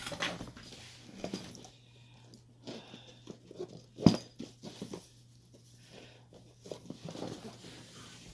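Scattered light clicks and rattles of lock picks and hand tools being rummaged through, with one sharp knock about four seconds in.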